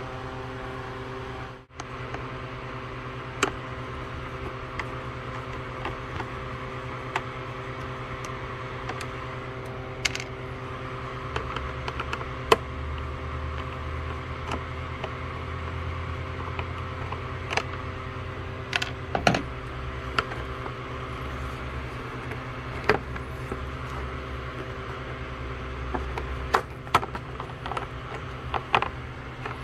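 Scattered small clicks and taps of a screwdriver and hands working screws and the plastic engine shroud, over a steady background hum.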